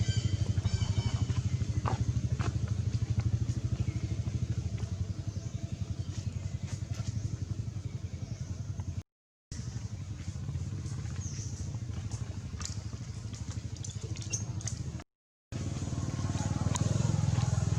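A small engine running steadily with a low, fast pulse. The sound cuts out completely twice for under half a second, about nine and fifteen seconds in.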